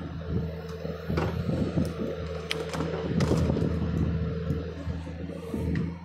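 John Deere excavator's diesel engine running steadily, with a series of irregular sharp knocks and clanks from the machine's work sounding over it.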